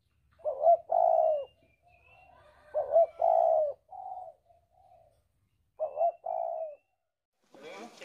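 A dove cooing in three phrases, each a short note followed by a longer coo, with faint high chirps of other birds in between.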